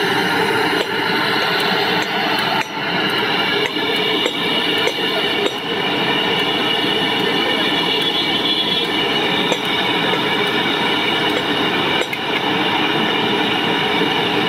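Steady rushing roar of the stove fire under a large brass pot of milky tea at the boil, with a few sharp clinks of a metal ladle against the pot as the tea is stirred and ladled.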